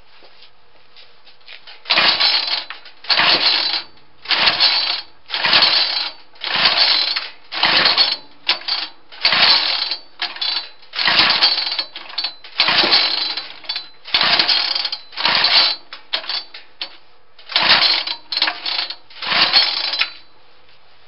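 Small two-stroke engine with a JB Weld epoxy cylinder being cranked over and over in short bursts of under a second each, about one a second, never catching and running on. The owner puts the failure down to the newly fitted muffler and a broken piston ring.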